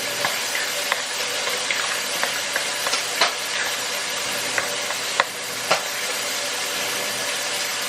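Food sizzling steadily in a hot frying pan, with scattered light clicks and taps of a utensil against the pan.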